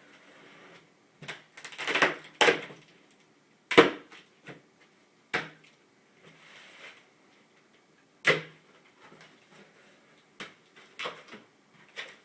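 Cardboard shipping box being opened and handled: irregular scrapes, rustles and knocks of cardboard, with sharp knocks about four seconds in and again about eight seconds in.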